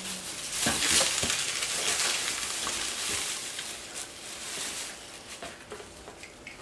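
Thin plastic shopping bag crinkling and rustling as it is handled and opened, busiest in the first few seconds and fading toward the end.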